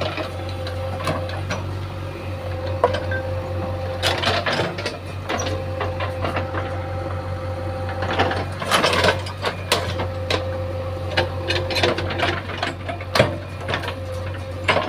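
JCB 3DX backhoe loader's diesel engine running steadily under a steady higher tone, with irregular knocks and clatter from the machine at work, a cluster of them louder about eight to nine seconds in.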